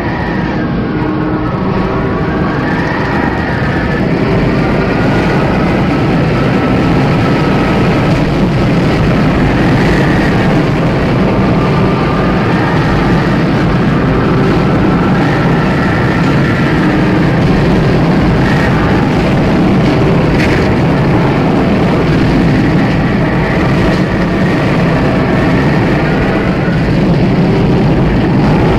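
Loud, steady distorted static noise with faint wavering tones coming and going beneath it: a glitch sound effect.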